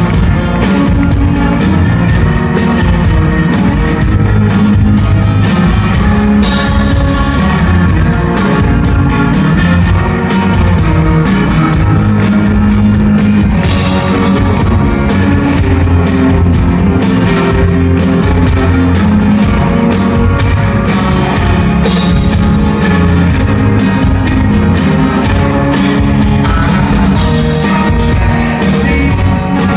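Live rock band playing: drum kit keeping a steady beat under bass and electric guitars, heard from among the audience.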